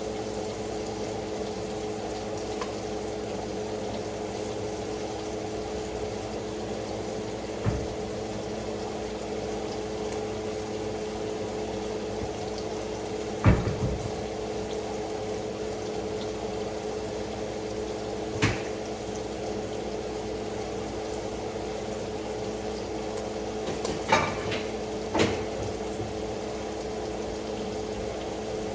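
Steady motor hum of a kitchen appliance, with five sharp knocks of pots, lids or utensils spread through it; the loudest knock is about halfway through, and two come close together near the end.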